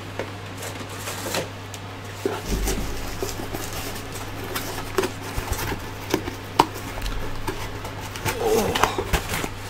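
Cardboard box being handled on a desk: irregular taps, clicks and scrapes as it is picked up and turned over, with a low thud a couple of seconds in and a busier patch of handling near the end.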